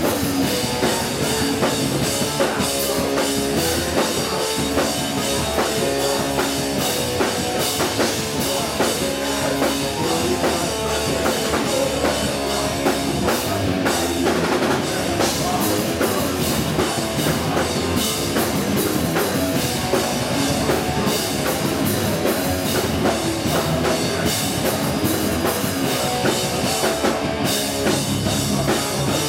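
Hardcore punk band playing live and loud: distorted electric guitars over a pounding drum kit, with no let-up.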